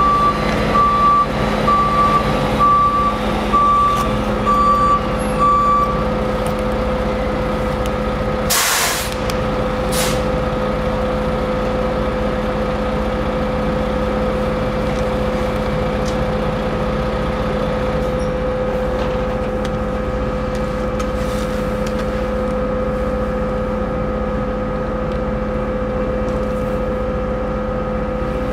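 Steady drone of the ferry's engines and onboard machinery, with repeated short warning beeps, about two a second, for the first six seconds. About eight seconds in there is a loud burst of air hiss from a truck's air brakes, and a shorter one follows a second later.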